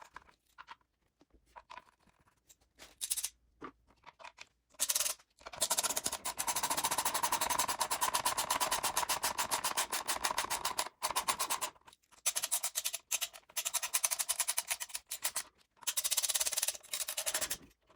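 Background music with a fast, even percussive beat, in stretches broken by sudden cut-outs.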